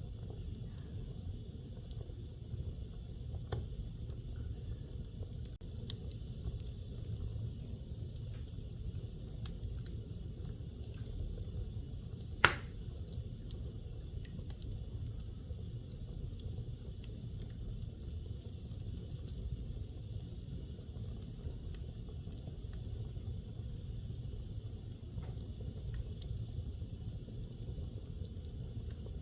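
Fire burning in a fireplace: a steady low rumble with scattered small crackles, and one loud sharp pop about twelve seconds in.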